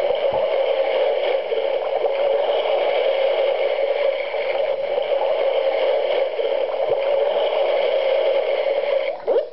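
A sound played through a small alarm clock's built-in speaker: a steady, buzzy electronic tone that starts suddenly and cuts off near the end. A different sound, a quick run of rising chirps, starts right after it.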